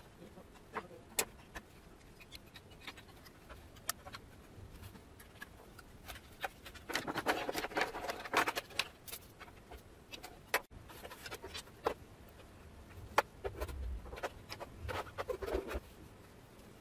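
Handling noise from working on a solar inverter's wiring and casing: scattered sharp clicks of plastic and metal parts, a stretch of rustling and rattling around the middle, and soft thuds later on.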